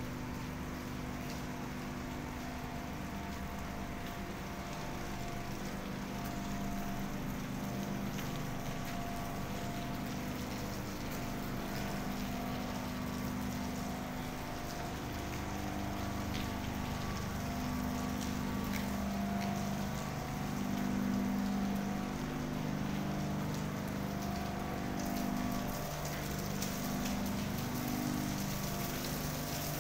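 Industrial machinery running with a steady hum made of several held tones over an even hiss, the low tones swelling and fading, a little louder a bit past the middle. A few faint ticks sound through it.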